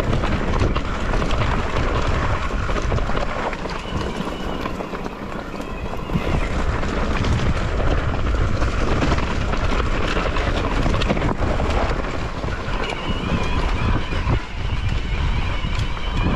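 A mountain bike running fast along a rough trail: wind buffeting the microphone and the tyres rumbling and rattling over stony ground. A faint high whine comes in twice, about four seconds in and again near the end.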